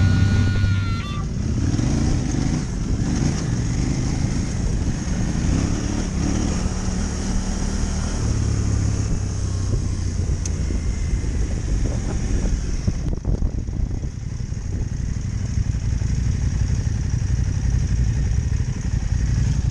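Adventure motorcycle engine running steadily as it is ridden along a gravel forest track, with a brief easing off of the throttle about two-thirds of the way through.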